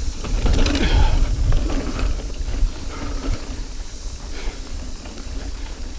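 Niner EMD 9 hardtail mountain bike rolling over dirt singletrack, its chain and parts rattling with many small clicks over the tyres' rumble, and wind buffeting the camera microphone. It is loudest in the first couple of seconds, then settles.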